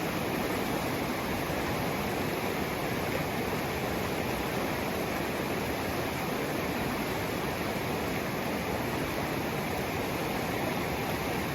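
Fast-flowing mountain creek at high water, rushing steadily as an even, unbroken wash of sound.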